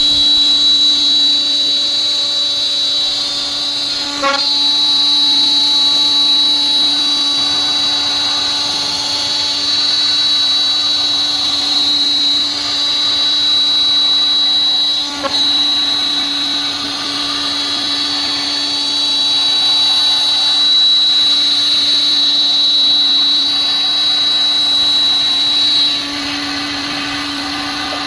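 AccTek AKM1325C CNC router's high-speed spindle milling aluminum sheet: a loud, steady high-pitched whine over a lower steady hum, briefly dipping twice. About two seconds before the end the whine weakens and the level drops.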